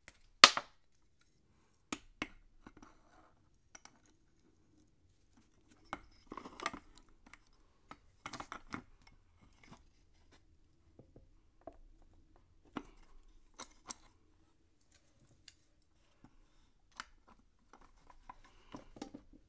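Pliers working a small screw loose in the crankcase of an old two-stroke chainsaw engine: scattered sharp metal clicks and short scrapes of tool on metal. The loudest click comes about half a second in.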